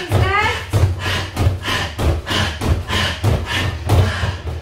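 Boxing gloves landing on a free-standing punching bag in quick jab-cross combinations, about three thuds a second, often in close pairs.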